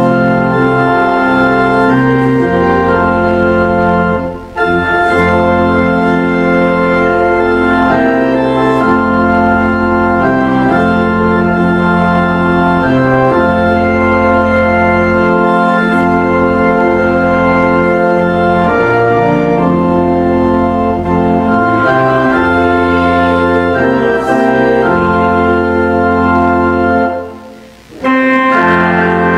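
Organ playing slow, sustained chords, with a short break between phrases about four seconds in and a longer one near the end.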